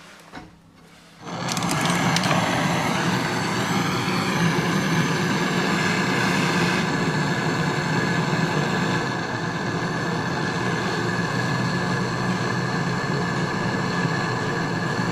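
Brazing torch flame burning steadily while the refrigerator's filter drier is brazed onto the copper line. It starts suddenly about a second in.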